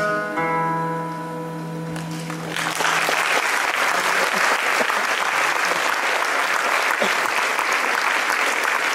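Guitar's final chord ringing out and fading, then an audience breaks into steady applause about two and a half seconds in.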